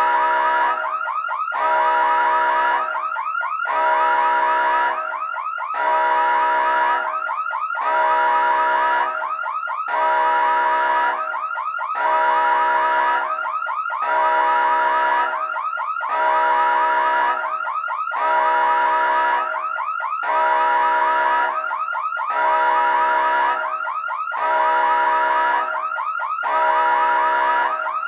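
Emergency siren sounding in a repeating cycle about every two seconds: a held tone, then a quick sweep in pitch.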